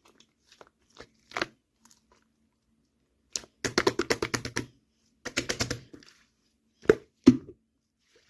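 Blue clay slime being squeezed and pressed by hand, giving quick runs of crackling pops and clicks. The first run is about a second long, the second shorter, and two single sharp snaps come near the end.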